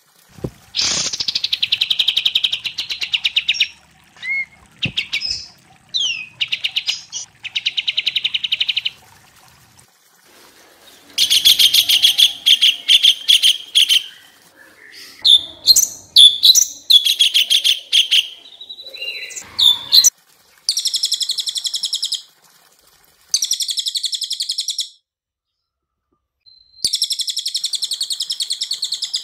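Songbirds singing: a string of fast, buzzy trilled phrases a second or two long, broken by short pauses, with a few quick whistled slurs. A denser, busier stretch of overlapping trills and whistles sits in the middle, and shorter, higher stuttering trills come near the end.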